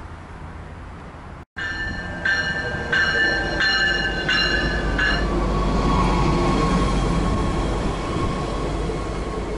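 A River Line diesel light-rail train rings its bell six times in a steady rhythm, then runs along the platform with a deep engine rumble and a high, slightly falling whine.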